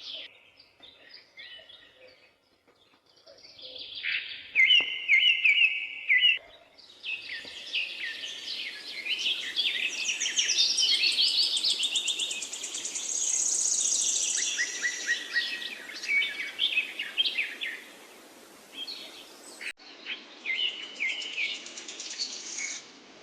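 Several birds chirping and singing in quick, varied calls and trills, over a steady background hiss from about seven seconds in.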